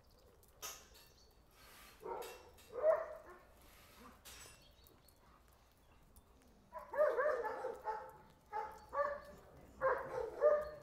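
A dog barking: two short barks a few seconds in, then a quicker run of barks in the second half.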